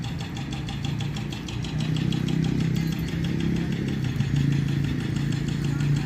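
An engine running steadily at idle: a low, even hum with a fast, regular ticking over it.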